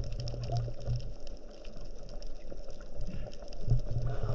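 Underwater sound picked up by a camera in a waterproof housing: a low rumble of moving water around the diver and gun, with a steady crackle of small clicks over it.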